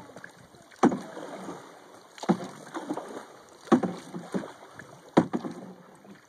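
Canoe paddles stroking through the water: four strong splashing strokes about a second and a half apart, with smaller splashes between them.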